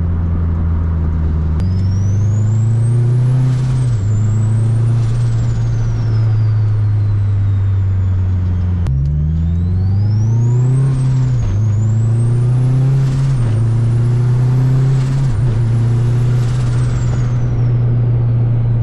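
Turbocharged Honda K-series four-cylinder under hard acceleration: two pulls, each rising in pitch through the gears and dropping at each upshift. A high turbo whine climbs with each gear and falls away at the shifts.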